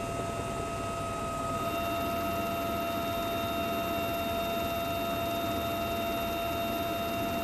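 UH-1Y Venom helicopter heard from inside in flight: a steady rumble with several constant high whines from the turbines and gearbox. The mix of whines shifts slightly about a second and a half in.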